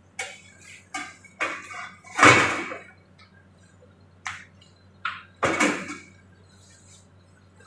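Washcloth being wetted and wrung out in a basin of water on a metal trolley, with short splashes and handling clatters. There are several separate bursts, the loudest about two seconds in and again about five and a half seconds in.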